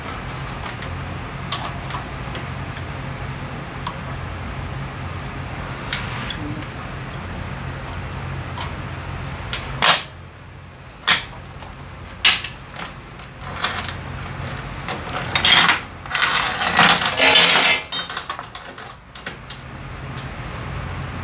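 Metal clinks and clicks of a motorcycle roller chain being handled and pulled through by hand, with a dense stretch of rattling links about three quarters of the way in. A steady low hum underneath stops about halfway.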